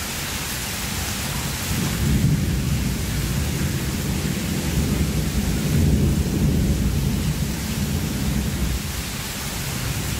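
Heavy rain pouring with thunder rumbling, the deep rumble swelling about two seconds in and again around six seconds.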